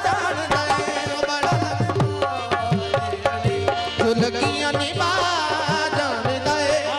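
Live qawwali music: harmoniums holding steady chords over regular tabla strokes, the tabla's bass drum bending in pitch, with a voice singing wavering lines in the second half.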